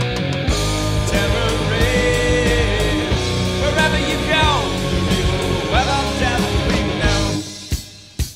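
1970s heavy hard rock recording: distorted electric guitar bending notes over bass and drums. Near the end the band drops away to a brief, much quieter break broken by a couple of hits.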